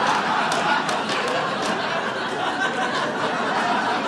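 Comedy-club audience laughing together after a punchline, with a few scattered claps.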